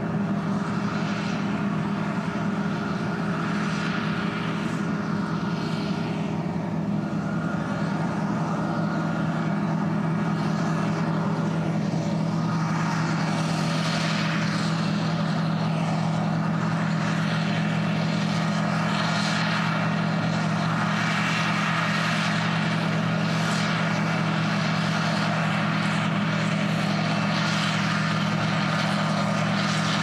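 John Deere combine harvester running steadily while harvesting wheat: a constant drone of engine and threshing machinery, with a shifting hiss above it.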